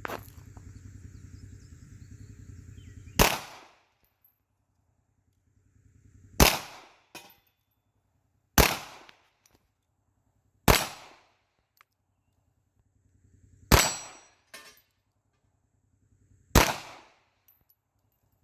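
Six .380 ACP pistol shots fired one at a time, two to three seconds apart, with a faint click shortly after two of them.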